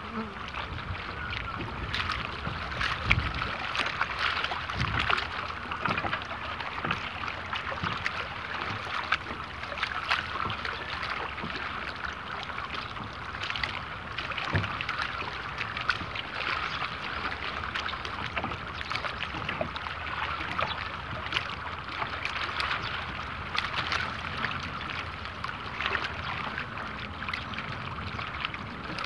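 Small ripples on open water lapping and splashing against the waterline right at the microphone: a steady run of little splashes and ticks with no letting up.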